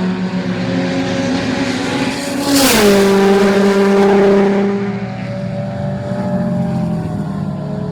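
Subaru race car's boxer engine under hard acceleration, its pitch climbing until about two and a half seconds in, when it drops sharply with a short burst of noise as the car shifts up. It pulls hard for a couple of seconds more, then the throttle eases off around five seconds in and the pitch slowly falls.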